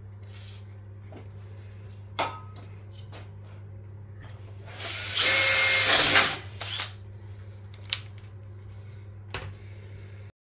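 Makita 18V cordless drill running under load for about a second and a half, about halfway through, boring into a milling machine's cast-iron column. A few short clicks and handling knocks come before and after.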